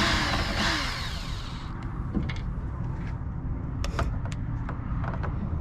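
Hand work on a TV's plastic casing with a screwdriver: a loud scraping creak with squeaky falling tones for about the first second and a half, then scattered clicks of plastic and screws, over a steady low rumble.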